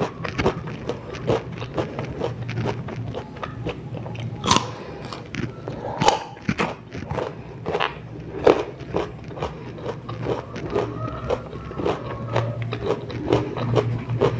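Crunching and chewing of crisp raw ambarella (kedondong) fruit: a fast, irregular run of crunches, with a few louder bites about four and a half and six seconds in.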